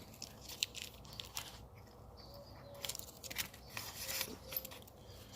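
Faint, scattered clicks and light scraping of small metal brake parts being handled while they are greased by hand, to stop the brakes squealing.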